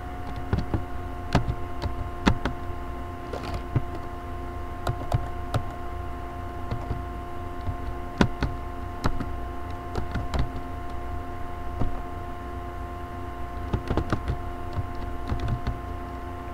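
Typing on a computer keyboard: slow, irregular key clicks, a few a second, over a steady electrical hum.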